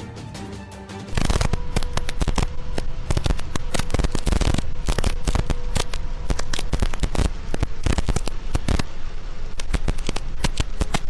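Heavy rain pelting the windscreen and roof of a moving car, heard from inside: a loud, dense, irregular crackle of drop impacts that starts abruptly about a second in.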